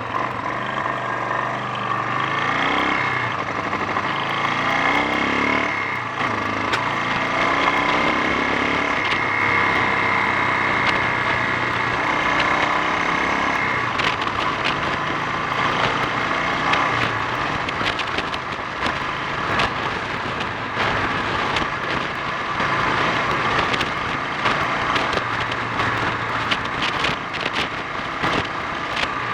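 Honda XL 350 single-cylinder four-stroke motorcycle engine running under way, revs rising and falling in the first few seconds and then holding steadier. This is an engine the rider reports as spluttering and bogging down on acceleration.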